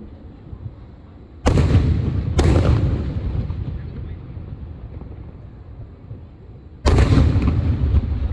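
Fireworks exploding in three loud booms, two close together about a second and a half in and a third near the end. Each boom is followed by a low rolling rumble that dies away over a second or two.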